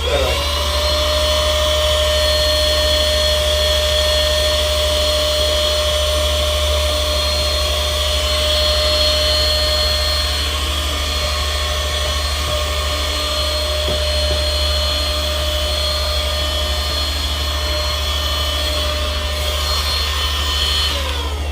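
A small electric motor appliance whirring with a steady high whine. It spins up at the start and winds down near the end.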